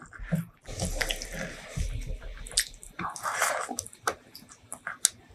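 Close-miked wet eating sounds of rice and spicy shrimp salad eaten by hand: a dense, wet squelching hiss for about three seconds as the handful goes into the mouth, then a few sharp, moist mouth clicks of chewing.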